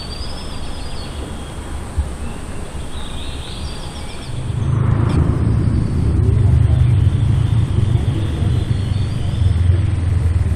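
A steady low rumble that grows louder about four and a half seconds in, with faint high chirps over it.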